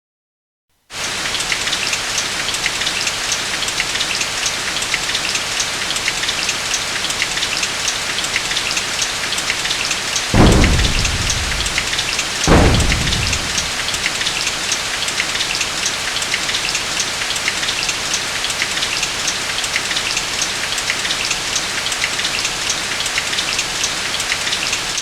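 Heavy rain falling steadily, starting about a second in, with two claps of thunder about two seconds apart near the middle, each rumbling away over a second or so.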